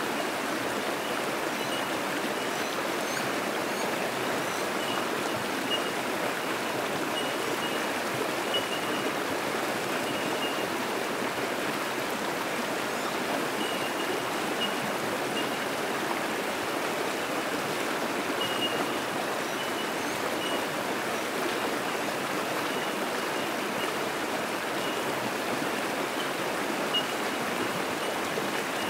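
Fast-flowing creek rushing over rocks in rapids: a steady, even rush of water. Short high pinging calls of bell miners (bellbirds) sound faintly through it now and then.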